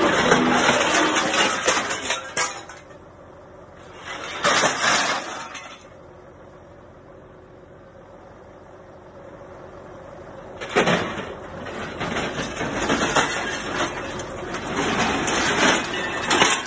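Crumpled metal plate scrap clattering and scraping as a hydraulic grab drags it out of a truck trailer. Loud clanging at the start, a short burst about four and a half seconds in, a quieter lull, then steady clattering again from about eleven seconds on.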